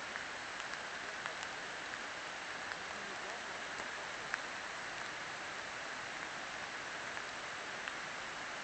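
Light rain falling steadily: an even soft hiss with scattered small drip ticks.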